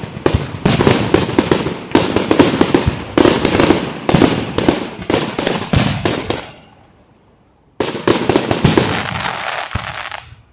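Aerial fireworks shells bursting in a rapid barrage of bangs and crackle. The barrage stops for about a second two-thirds of the way through, then a second rapid volley follows and fades.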